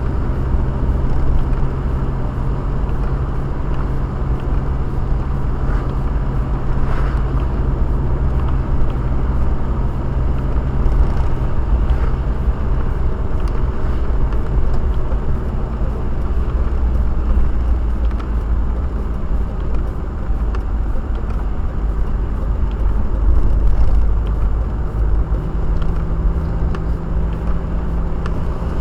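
Car driving, heard from inside the cabin: a steady low rumble of engine and road noise, with an engine hum that changes pitch about halfway through and again near the end.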